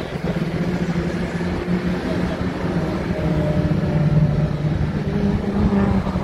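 Race car engines running hard as a small group of touring cars approaches along the circuit, the sound growing louder as they close in, loudest about four seconds in.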